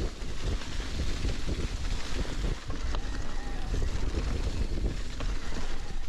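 Wind buffeting the microphone of a handlebar-mounted camera on an electric mountain bike, mixed with the tyres rolling through dry fallen leaves and the clatter of the bike over the rough trail.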